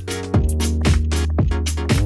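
Background music with a steady beat, about two beats a second, over a held bass note.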